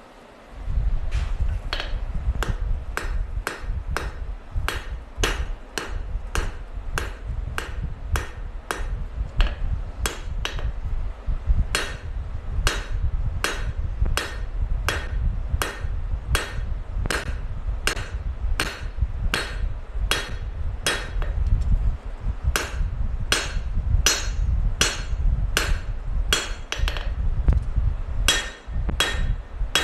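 Hand hammer striking hot steel on an anvil in a steady rhythm of about two blows a second, each with a short metallic ring: a forge weld of a coil-spring steel blade into a mild steel pocket being hammered together.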